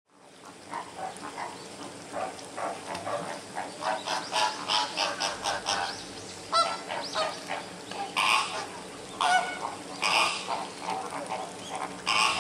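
A flock of flamingos calling: many overlapping short, goose-like honks, fading in at the start, with louder single honks standing out about once a second in the second half.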